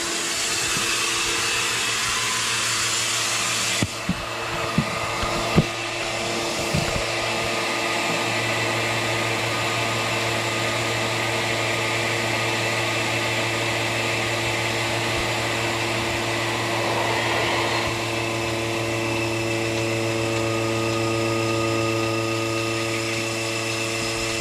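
Melasty electric milking machine's vacuum pump running with a steady hum, with a few short clicks about four to seven seconds in.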